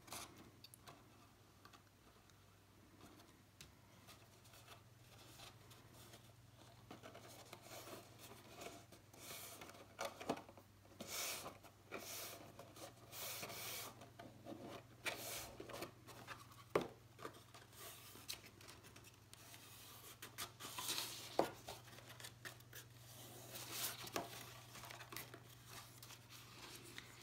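Faint rustling, rubbing and scraping of cardstock as a glued paper box's bottom is folded over and pressed down by hand, with a low steady hum underneath.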